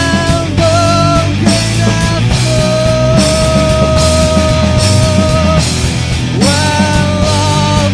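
Rock band playing a song with drums and guitars; a melody line slides up into held notes, one held for about three seconds in the middle, and slides up again near the end.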